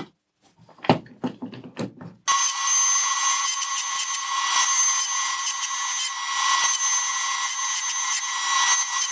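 Knocks and rubbing as wood pieces and a square are handled on a table saw's crosscut sled, then about two seconds in the table saw starts running with a steady, high-pitched noise.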